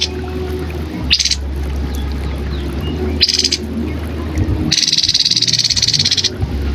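Grey-headed babbler calling: two short high notes, then about five seconds in a fast rattling trill lasting about a second and a half, over a steady low hum.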